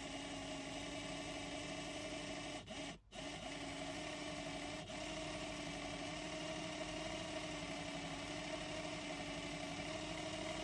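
Small electric motor of a TRIX N gauge Britannia model locomotive, freshly oiled, running with a steady whir, very smooth. It drops out briefly about three seconds in and then runs on evenly.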